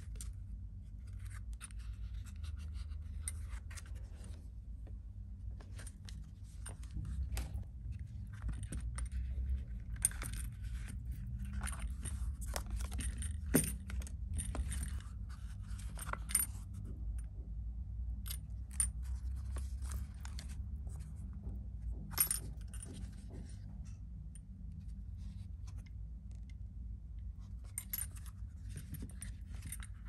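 A leather sandal being handled: its large metal buckle gives light clicks and jingles, and the leather strap scrapes, with a few sharper clicks scattered through. A steady low hum runs underneath.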